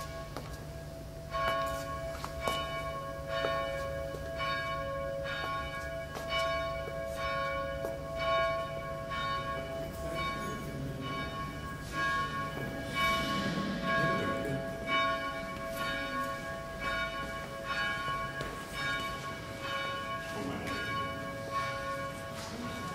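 Church bells ringing, struck in a steady repeating pattern about once a second, each stroke ringing on as the next one sounds.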